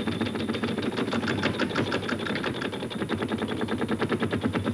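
Game-show prize wheel spinning, its pegs flicking past the pointer's flapper in rapid, even clicking at about ten a second, slowing a little toward the end.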